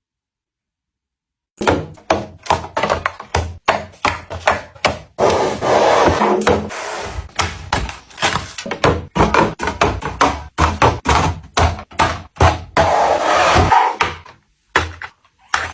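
Household items being handled and set down: after a second and a half of silence, a quick, uneven run of knocks, taps and clunks mixed with rubbing and scraping.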